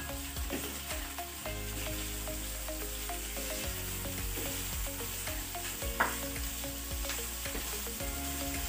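Chopped lechon (roast pork) frying with onion and garlic in hot oil in a pan, sizzling steadily while a spatula stirs and scrapes it, with small clicks throughout and one sharper clack about six seconds in.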